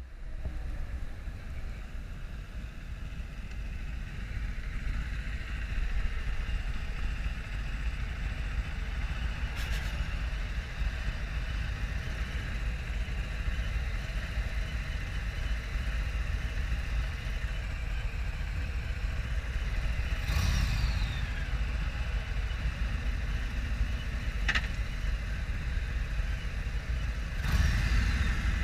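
Wind rushing over the microphone on a moving Harley-Davidson LiveWire electric motorcycle, with almost no motor sound. Steady low buffeting noise that swells briefly about twenty seconds in and again near the end.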